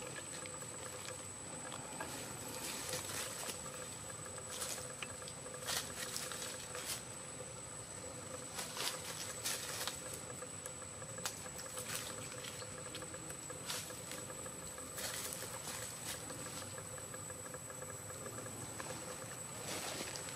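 Dry leaves rustling and crackling in short, irregular bursts on the forest floor as a macaque shifts about, over a constant faint high whine.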